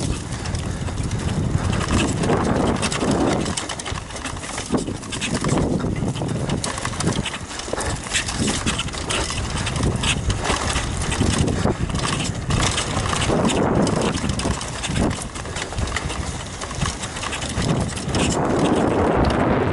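Downhill mountain bike ridden fast down a dirt forest trail: tyres rumbling over the ground, the bike clattering and knocking over bumps, with rushing wind on the microphone.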